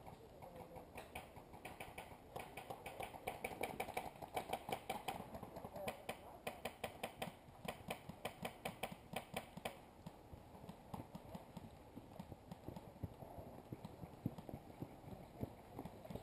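Airsoft guns firing across the field: runs of quick, sharp cracks several times a second, thickest in the first ten seconds and thinning out after, over a faint murmur of distant players.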